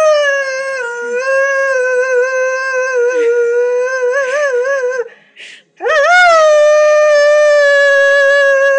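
Lurcher howling, left behind while his companion greyhound is out on a walk: one long howl of about five seconds that wavers near its end, a brief pause, then a second long, steady howl starting about six seconds in.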